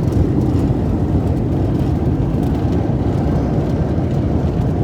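Airliner cabin noise after landing: a steady, loud low rumble and rush from the jet engines and airflow, heard from inside the cabin.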